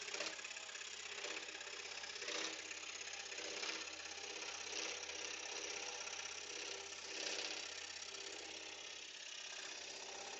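Axminster Professional AP535SS scroll saw running, its reciprocating blade cutting through a pine board with a steady hum. The cutting noise swells briefly a few times as the board is fed along the curve.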